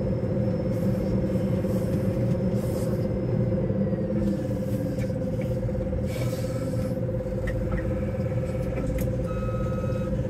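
Telehandler's diesel engine running steadily while carrying a load on its buck rake, heard from inside the cab. Near the end its reversing alarm starts beeping.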